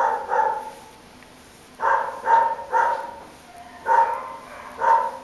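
A dog barking about six times in short, evenly pitched barks, grouped in ones, threes and twos.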